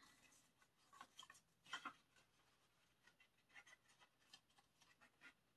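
Faint rustling and light ticks of cardboard and paper as a music album's CD packaging is handled, the strongest scrape about two seconds in.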